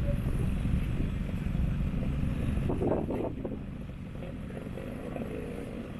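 Distant competition car engine running on the track, fading away about halfway through, over a steady low rumble.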